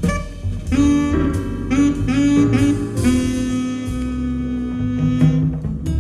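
Jazz played back over a high-end hi-fi system: a wind-instrument melody over a walking bass, with a long held note from about halfway through to near the end.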